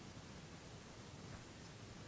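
Faint, steady background hiss with no distinct event: quiet outdoor ambience while no shot is fired.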